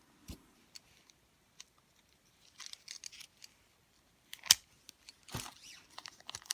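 Small handling sounds of a package being opened: scattered light clicks and rustles, with a single sharp click about four and a half seconds in and a soft knock shortly after.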